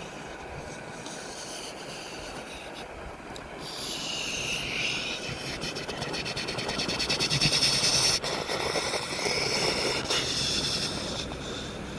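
Mack garbage truck with a McNeilus front-loader body, its engine running and growing louder to a peak about two-thirds of the way through, then easing off.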